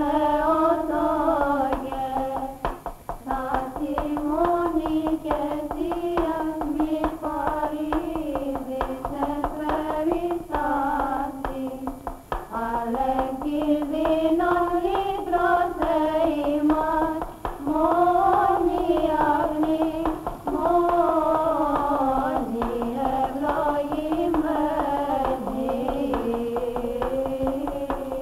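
Byzantine chant sung in unison by women's voices: a single slow, winding melody with long held notes and a few short pauses between phrases.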